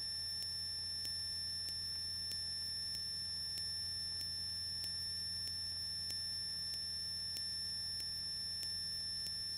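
Steady electrical hum and high-pitched whine on the aircraft's radio and intercom audio feed between transmissions, with faint regular ticks about twice a second.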